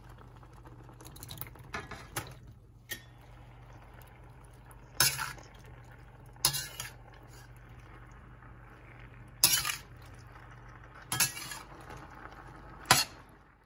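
Metal fork and slotted spoon clanking and scraping against a stainless steel skillet as penne is stirred into tomato sauce, with several sharp clanks over a steady low hum.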